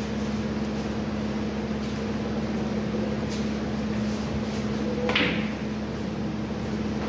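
A snooker cue striking the cue ball: one sharp click about five seconds in, over a steady low machine hum in the hall.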